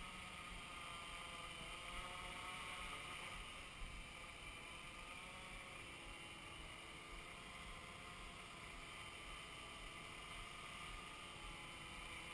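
Hexacopter's brushless motors and propellers whirring faintly, several pitches wavering slowly up and down as the motor speeds change.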